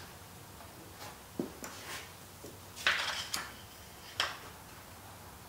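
Light metallic clinks and taps, a handful of short separate ones with a small cluster about three seconds in, as an adjustable screw jack under a handle is turned and metal parts are handled on a steel workbench.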